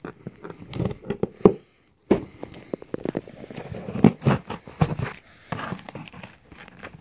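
Cardboard shipping box being handled and torn open by hand: a run of irregular rips, scrapes and knocks, with a brief pause about two seconds in.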